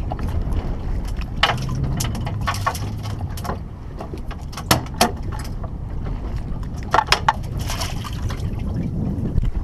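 Sea water lapping and slapping against the side of a small boat over a steady low rumble, with a few short, sharp slaps about five seconds in and again about seven seconds in.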